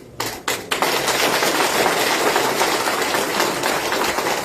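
Audience applauding: a few scattered claps, then full, loud applause from about a second in.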